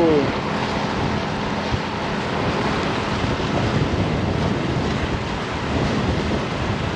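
Wind buffeting the microphone over small waves at the shoreline: a steady, unbroken rushing noise.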